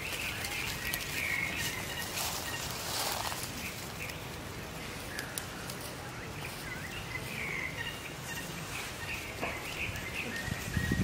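Outdoor ambience: a steady background hiss with faint, short high chirps and occasional rustles in dry leaf litter, and a few louder low thuds near the end.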